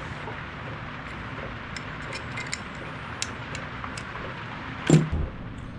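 Scattered light metallic clicks of a hand ratchet wrench tightening a bolt on a motorcycle's footpeg mount, over a steady low background hum, with one louder knock about five seconds in.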